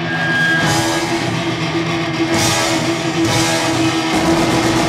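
Heavy metal band playing: distorted electric guitar holding one long note over drums, with cymbal crashes about half a second, two and a half and three and a half seconds in.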